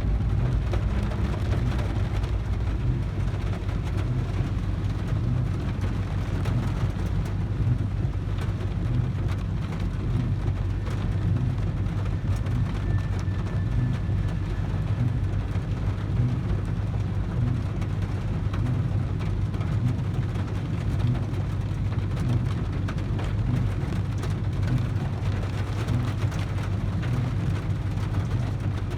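Heavy rain beating on a car's roof and windows, over a steady low rumble.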